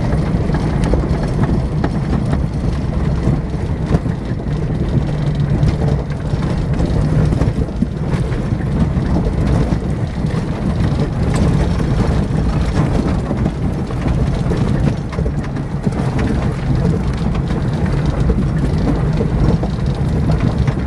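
Inside the cab of a 4x4 driving slowly over a rocky dirt trail: a steady low engine drone, with tyres crunching over gravel and stones and the cab rattling as the vehicle rocks.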